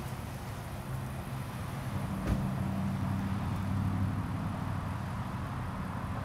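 Steady low mechanical rumble, with one sharp click a little over two seconds in.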